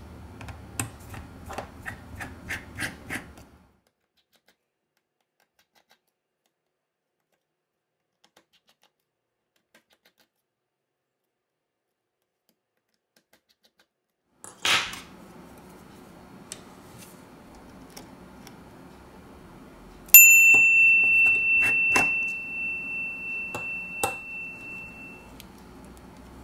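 Rapid light ticks of a precision screwdriver working the small screws of a phone's middle frame, then a long stretch of dead silence. Later comes a sharp knock, more scattered light ticks, and a clear bell-like ding about 20 seconds in that rings on and fades over about five seconds.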